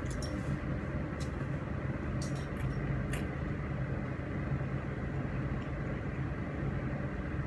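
A steady low mechanical hum, with a few faint clicks in the first three seconds.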